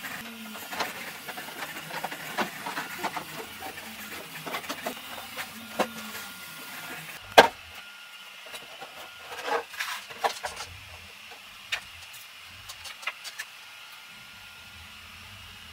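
Light clicks and knocks of hollow 3D-printed plastic model-aircraft parts being handled and set down on a workbench, with one sharper knock about halfway through; the knocking thins out near the end. A faint steady whine runs underneath.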